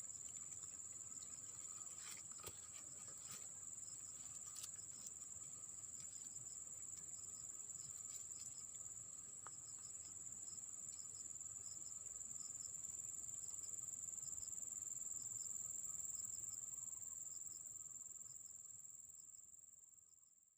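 Insects calling outdoors, a steady high-pitched drone with a fainter lower tone under it, a few faint clicks early on. The sound fades out near the end.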